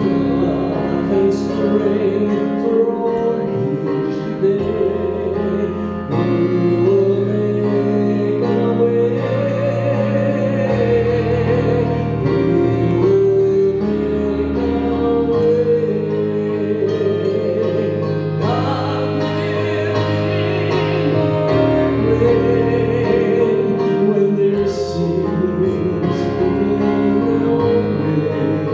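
Church worship music: a singer with instrumental accompaniment, holding long sung notes.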